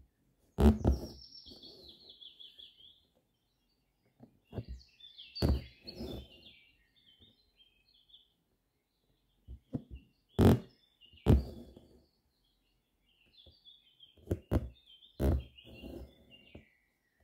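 Hand-embroidery needle and thread pulled through fabric stretched taut in a hoop: sharp pops each followed by a short rasp, coming in pairs every few seconds. Songbirds chirp and twitter in the background.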